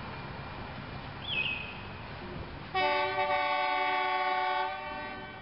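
Horn of a South Australian RedHen railcar sounding one blast of about two seconds, a chord of several steady tones, starting a little under three seconds in and fading out.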